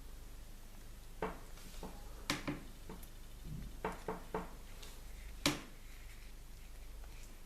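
A series of light clicks and taps, about eight in a few seconds, from small toys and their packaging being handled, the sharpest about five and a half seconds in.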